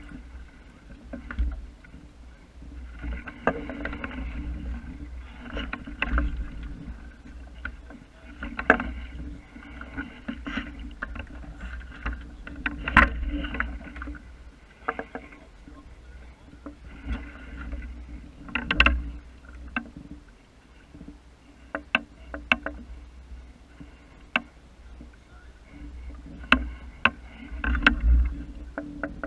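Water lapping against the hull of a small wooden sailing boat under way, over a steady low rumble, with scattered sharp knocks and clicks from the boat and its gear.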